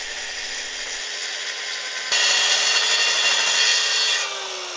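Makita track saw (plunge-cut circular saw) cutting along a slabwood board on its guide rail. About two seconds in the cut gets much louder for a couple of seconds. Near the end the motor winds down with a falling whine.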